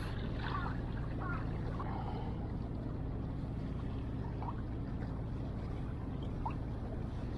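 A steady low motor drone, with short high chirps scattered over it.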